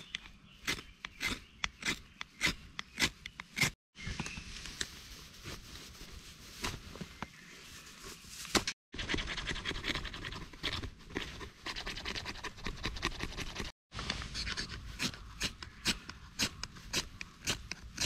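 Knife spine scraped hard down a ferrocerium fire-starter rod in quick repeated strikes to throw sparks onto fatwood tinder. In the middle comes steadier scraping as a knife shaves thin curls from a resin-rich fatwood stick. Repeated spark strikes follow near the end.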